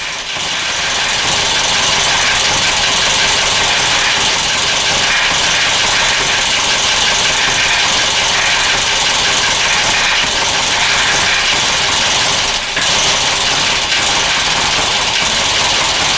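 1996 Geo Metro's 1.3-litre four-cylinder engine running rough at idle, loud and steady with a fast uneven pulsing; the level dips briefly about three-quarters of the way through.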